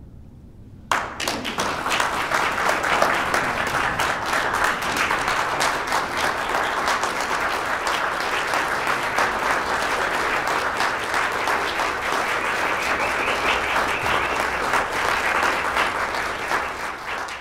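Audience applauding. The clapping starts suddenly about a second in, goes on steadily as a dense patter of many hands, and fades near the end.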